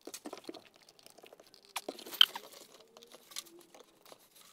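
A fabric-covered acoustic panel being handled and hooked onto screw-in ceiling hooks: scattered light clicks, rustling and crunching, with one sharper click a little past two seconds in.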